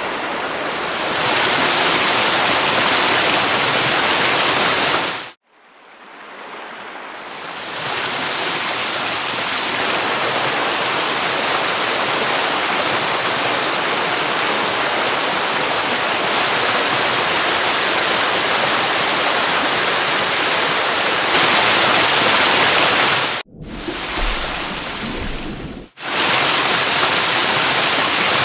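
Heavy rushing water, a steady wash of noise like a stream or flood torrent. It cuts off abruptly about five seconds in and swells back up. It cuts out again near the end, with a short quieter stretch of deep rumble before the rush resumes.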